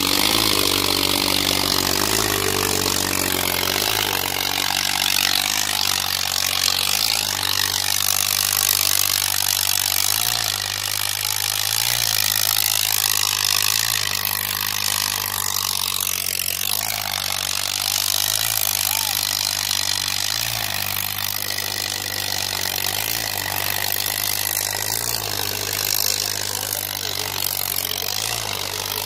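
Eicher 557 tractor's three-cylinder diesel engine running steadily under heavy load as it drags two disc harrows through deep soil, with a low beat pulsing about every second and a half.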